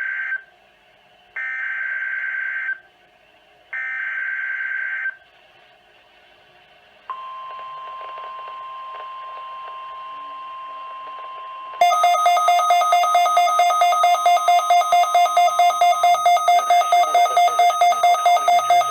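NOAA Weather Radio Emergency Alert System broadcast: three SAME header data bursts of harsh digital warbling, each about a second and a half long, the first already under way. About seven seconds in, the steady 1050 Hz weather radio warning tone begins, and from about twelve seconds in a much louder electronic alarm beeps rapidly over it, about five beeps a second.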